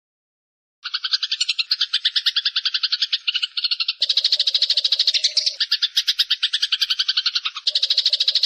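A rapid, even trill of about ten pulses a second from a recorded songbird-training 'mastering' track. It starts after a brief silence, and a second, lower-pitched trilling layer joins about four seconds in.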